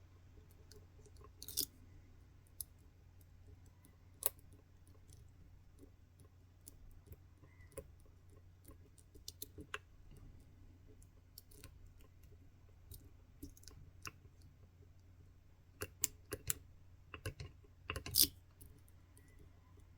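Lock pick working the pins of an Assa 600 cylinder lock, with scattered small clicks and taps as pins are nudged and set. Louder clicks bunch together near the end, over a faint steady low hum.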